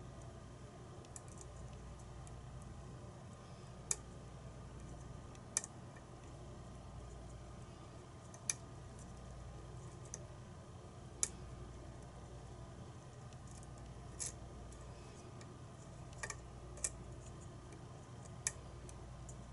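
About eight sharp, irregular metallic clicks from a lock pick and tension tool working the pin stack of a pin-tumbler challenge lock, held in a false set while the picker hunts for a trap pin. A faint steady hum runs underneath.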